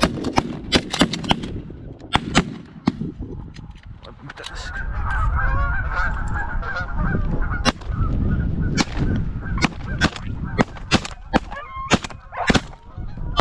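A flock of geese honking, with many sharp cracks throughout, among them shotgun shots, the loudest a cluster near the end.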